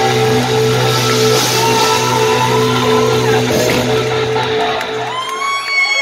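Live rock band with synth keyboard, electric guitars and drums holding its closing notes, which stop about five seconds in. High whoops and shouts from the audience follow, cheering the end of the song.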